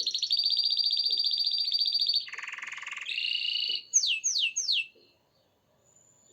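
Domestic canary singing: a run of rapid rolling trills, first high, then a lower trill, then high again, ending in three quick falling whistles before it breaks off about five seconds in.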